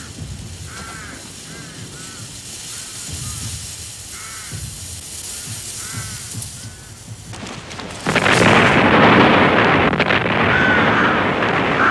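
Crows cawing, a string of short calls. About eight seconds in, a sudden loud burst of noise as a crashed biplane goes up in flames, and the fire keeps burning with a steady roar while the crows go on calling.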